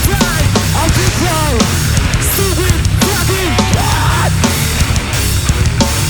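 A heavy band playing live and loud: dense distorted low end under sliding, bending high notes.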